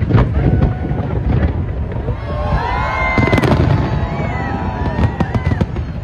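Fireworks display: a rapid string of bangs and crackles from bursting aerial shells, loudest at the start and again around three and five seconds in.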